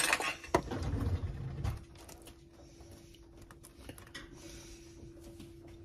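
A utensil scraping and knocking against a disposable aluminium foil pan as pizza sauce is spread over slider buns: a cluster of clicks and scrapes in the first two seconds, then only a faint steady hum.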